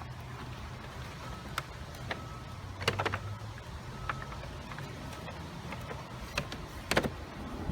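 Scattered plastic clicks and knocks as upright-vacuum housing parts are handled and fitted together, the sharpest about three seconds in and again about seven seconds in, over a low steady hum.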